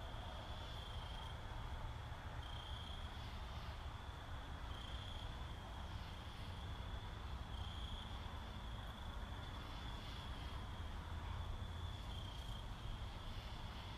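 Insect chirping in short, high-pitched trills every second or two, over a steady low hum and hiss.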